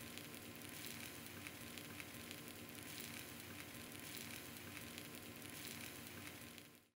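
Egg-coated beef slices (yukjeon) frying in oil in a pan: a steady sizzle with fine crackling, which fades out just before the end.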